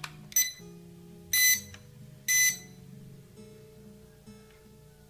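Three high electronic beeps from the HR SH5W toy quadcopter set, a short one followed by two longer ones, as the quadcopter powers up, its lights coming on. Guitar background music plays underneath.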